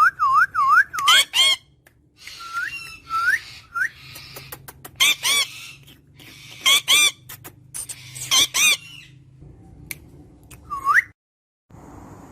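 Birds calling: a quick run of whistled notes that dip and rise in pitch, then loud, harsh squawking calls three times, with sharp clicks between them and a single rising whistle near the end.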